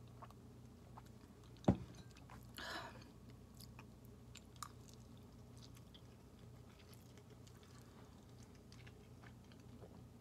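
A person quietly chewing noodles, with faint small mouth clicks. One sharp knock comes a little under two seconds in, then a short hiss about a second later.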